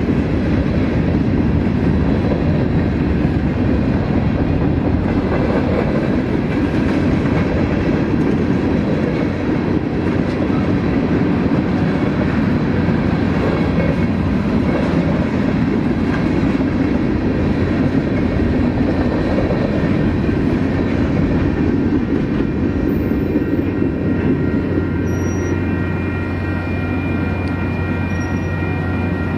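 Freight train of covered hoppers and tank cars rolling steadily through a grade crossing: a continuous rumble of wheels on rail joints with clickety-clack, easing off slightly near the end.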